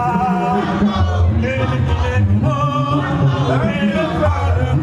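Music with male singing over a strong bass line.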